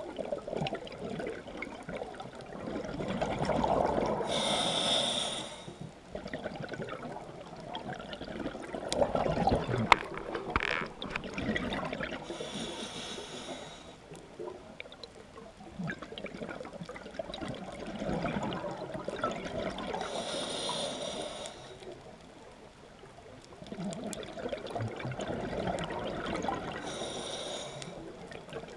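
A scuba diver's regulator breathing underwater. It gives four short hissing inhalations, spaced about seven to eight seconds apart, with bubbling, gurgling exhalations between them.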